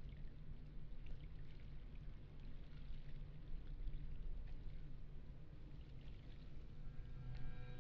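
Lake water gently lapping and trickling, with many small splashes and drips over a low steady rumble. Soft sustained music tones come in near the end.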